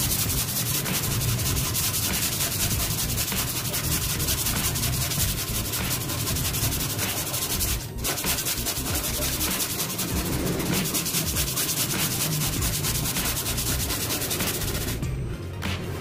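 Sandpaper on a hand-held sanding block, rubbed rapidly back and forth over the bare metal of a Vespa LX 150 body panel. The sanding smooths the panel after its dents have been hammered out, ready for paint. It pauses briefly about halfway through and eases off near the end.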